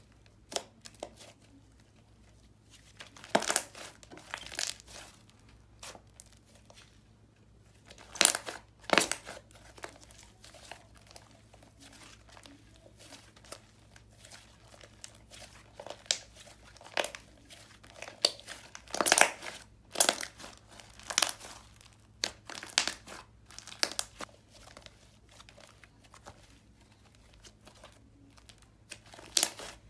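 Hands squishing, stretching and pressing a thick, creamy butter-clay slime, making sticky crackles and small pops at irregular moments, with a few louder clusters.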